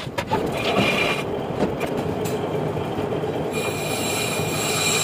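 Metal lathe spinning a car's brake disc rotor while the cutting tool faces its braking surface, which is worn rough. The cut gives a steady metallic squeal and ring, and a higher, louder ringing sets in about three and a half seconds in.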